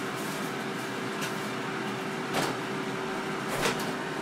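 Hot-air fryer running, its fan giving a steady hum and rush of air. A few short clicks and knocks sound over it, the last one near the end.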